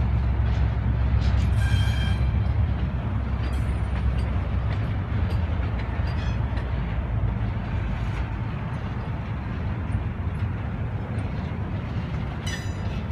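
Diesel freight locomotives and a double-stack container train passing: a deep engine rumble that eases after about four seconds, leaving the steady rolling noise of the cars on the rails. Brief high squeals about two seconds in and again near the end.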